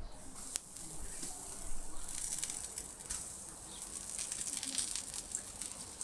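Floured squid rings shallow-frying in hot vegetable oil on a barbecue: a steady sizzle full of fine crackles, a little louder from about two seconds in. A sharp click comes just after the start.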